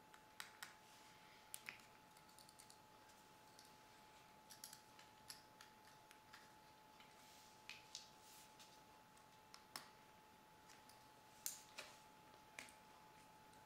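Faint, scattered small clicks and taps of a small screwdriver and fingertips on the metal and plastic parts of an opened compact digital camera, as tiny screws are backed out of a plate.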